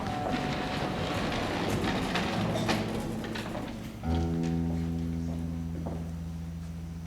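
Live stage-musical band music: a dense, clattering passage, then about four seconds in a low sustained chord comes in and holds steady.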